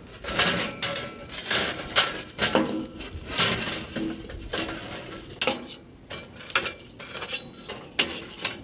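Lit charcoal poured into metal charcoal trays: a run of irregular clinks and rattles as the lumps tumble and knock against each other and the metal, thinning out toward the end.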